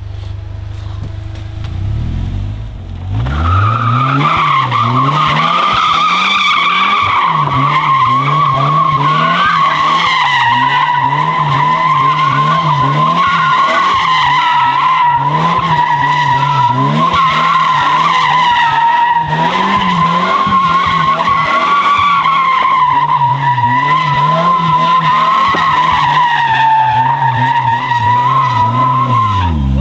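Polaris Slingshot's GM four-cylinder engine, stock apart from headers, revs up from idle about three seconds in and is held at high revs while the rear tire squeals continuously through donuts. The revs waver up and down with the throttle and fall away at the very end.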